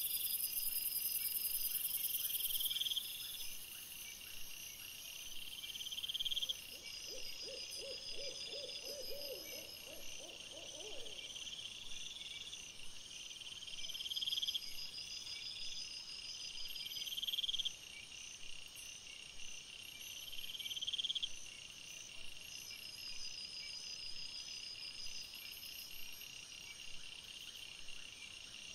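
Crickets trilling in short phrases repeated every couple of seconds. About seven seconds in, a low, rapidly pulsed animal call runs for some four seconds.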